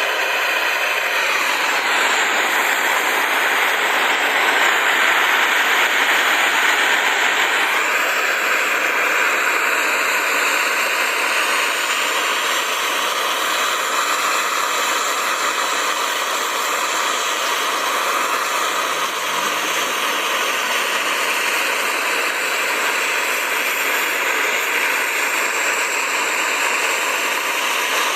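Angle grinder grinding steel in one long continuous run, a dense steady grinding noise whose pitch shifts slightly as the disc is loaded and eased off.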